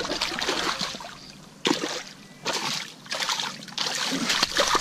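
A small hooked fish thrashing and splashing at the water's surface as it is grabbed by hand, in several separate bursts of splashing.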